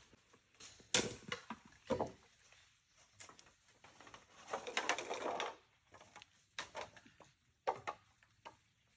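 Bamboo being handled and worked by hand: scattered knocks and taps, with a scraping sound lasting about a second around the middle.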